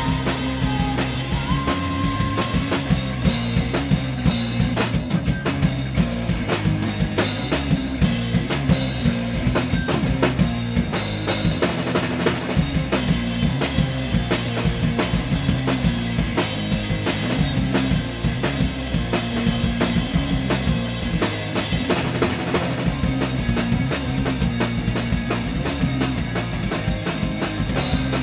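Indie rock band playing live with drum kit, electric bass and electric guitars, in an instrumental stretch with no singing. The drums keep a steady driving beat over a repeating bass line.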